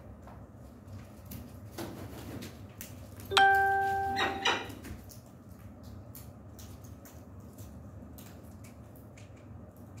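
A bell-like ring about three seconds in, holding one pitch and fading over about a second, followed by two quicker clinks. Around it, a low steady hum with faint scattered taps.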